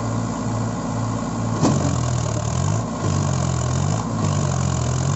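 Mahindra Arjun 555 DI tractor's four-cylinder diesel engine labouring as the tractor, stuck in mud, strains against a loaded trolley; its pitch dips and rises about once a second. A single sharp knock comes about a second and a half in.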